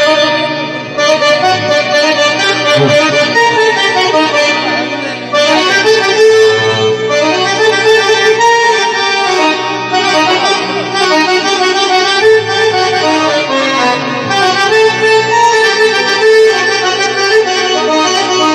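Live Arabic band music led by an oriental keyboard (org) playing a sustained melody in a reedy, accordion-like voice.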